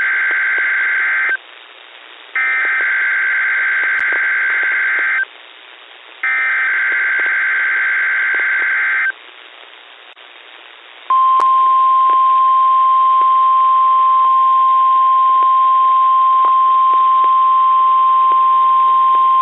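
Emergency Alert System SAME header tones on a NOAA Weather Radio weekly test, received over a radio. There is the end of one digital data burst, then two more, each about three seconds long with a second of radio hiss between them. After a pause of about two seconds, the steady 1050 Hz NOAA Weather Radio warning alarm tone starts and holds.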